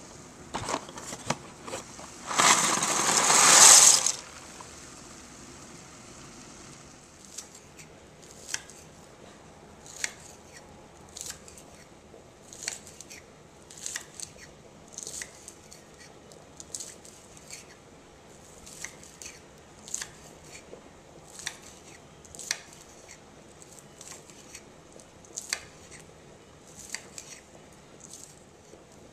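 Dry cellentani pasta poured from a cardboard box into a pot of boiling water: a loud rushing clatter lasting about a second and a half. After that, a kitchen knife chopping green onions on a stone countertop, one sharp tap about every one to one and a half seconds.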